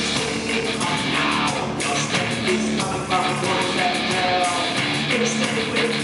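Live industrial rock band playing a song, with a lead singer on the microphone over the band.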